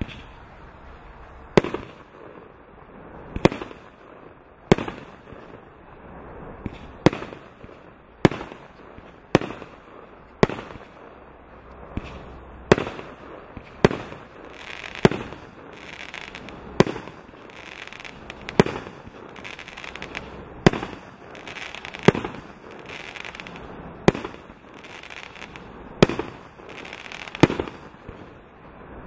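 CF643Z 64-shot 30 mm angled firework cake firing its shots in steady succession, about one a second. Each shot is a sharp bang followed shortly by a softer burst.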